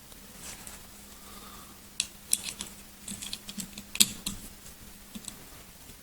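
Light metallic clicks and taps of small CZ 75 SP-01 pistol parts being handled and fitted into the frame. The clicks start about two seconds in, come irregularly, and the sharpest is about four seconds in.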